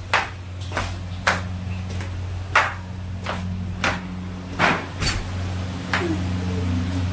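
Footsteps going down concrete stairs: about nine sharp, irregularly spaced steps, over a steady low hum.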